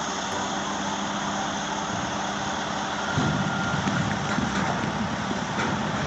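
A Volvo articulated dump truck running steadily as its body tips up to dump a load. A louder low rumble joins in about halfway through.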